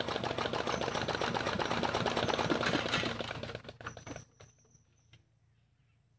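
Small Chinese diesel engine running with a fast, even clatter, then shut off about three and a half seconds in, running down and stopping within about a second.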